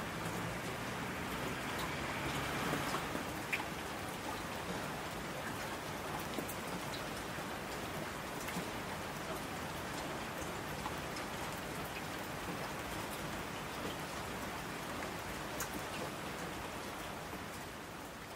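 Steady rain falling, with scattered individual drop ticks, beginning to fade out near the end.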